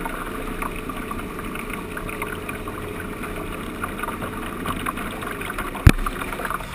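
Motorboat under way: the original 175 HP Sea Ray motor of a 1988 16-foot Sea Ray center console running steadily beneath the rush of water along the hull and wind on the hull-mounted microphone. One sharp knock near the end.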